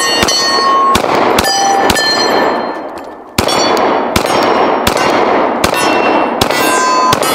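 Glock 23 Gen 5 .40 S&W pistol fired ten times in steady succession: four shots, a short pause, then six more. Steel targets ring after the shots.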